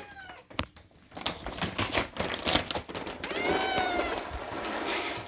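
A cat eating from a slow-feeder bowl: quick, irregular clicking and smacking of chewing and licking. About three and a half seconds in, a cat gives one meow.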